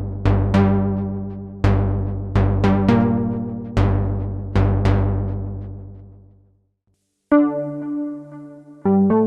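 Arturia JUN-6V software synthesizer, an emulation of the Roland Juno-60, playing a bassy plucked patch: about seven notes with sharp attacks that each die away. The last one fades out to a short silence, then a different patch comes in with held, steady tones near the end.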